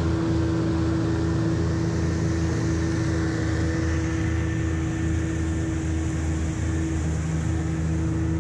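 40 hp Evinrude outboard motor running under way at a steady speed, its pitch holding level with no change of throttle.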